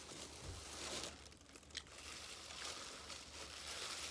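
Plastic crinkling and rustling, in irregular crackles.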